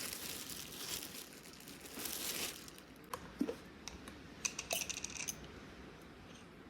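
Rustling, crinkling noise for the first two seconds or so, then a scatter of light clicks and a brief clinking of small hard objects, as if something is being handled at close range.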